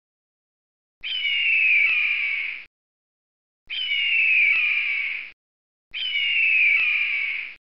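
A bird's harsh, high screech that falls in pitch, like a hawk's cry, heard three times about a second apart. Each cry lasts about a second and a half and is the same shape each time.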